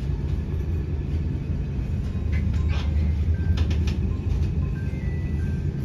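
Inside a Merseyrail Class 508 electric multiple unit running at speed, heard as a steady low rumble from wheels and bogies, with a few sharp clicks and rattles from the track around the middle. The close walls of a tunnel fill out the rumble.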